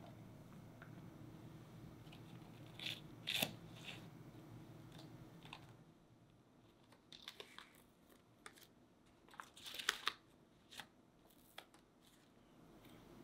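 Crisp crinkling and rustling of baking paper being unfolded and peeled away from a baked cheesecake slab, in short sharp crackles through the second half. Earlier come a few louder plastic crinkles and clicks from the piping bag being handled.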